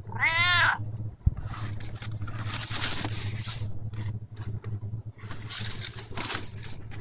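Domestic cat giving one short meow that rises and falls, then rustling and shifting in crumpled packing paper inside a cardboard box, with a soft low thump about a second in.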